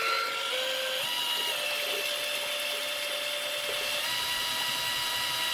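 Electric drill driving a drill pump, running steadily with a whine that shifts in pitch a few times, as it sucks white vinegar out of a gallon jug to flush through a tankless water heater.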